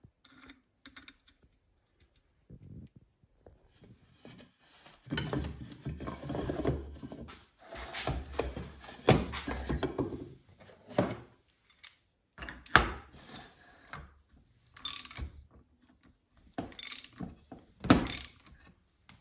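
Ratchet wrench and socket running down the hub nut on a Volvo TGB portal axle, with metallic clattering and ratchet clicks. A dense run of clatter comes in the middle, followed by several separate sharp clicks.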